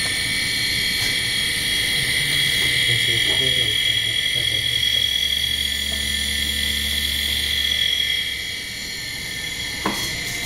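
Steady high-pitched whine from a self-oscillating Stingo motor circuit driving a hard disk spindle motor. A low hum joins in about halfway through and fades a few seconds later, and there is a single click near the end.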